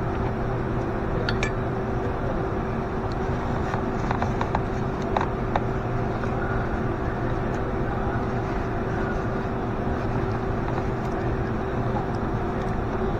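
A steady mechanical hum holding one fixed pitch, with a few light metallic clinks about four to five seconds in.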